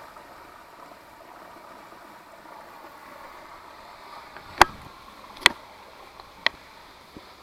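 Creek water running steadily, with three sharp clicks about a second apart in the second half.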